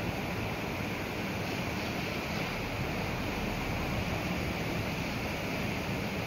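Steady rushing of rain-swollen river water, with wind buffeting the microphone.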